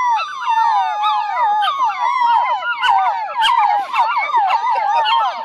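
A litter of puppies howling together: many high, wavering howls overlapping and rising and falling in pitch without a break.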